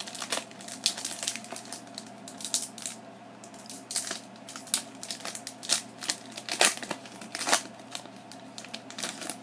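A Pokémon booster pack wrapper being torn open and crinkled: an irregular run of crackles and rips.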